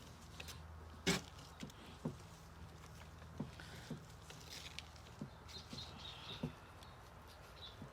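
Scattered light knocks and clicks, about a dozen spread irregularly, the loudest about a second in, from the raw turkeys and their pan being handled while the legs are crossed, over a steady low hum.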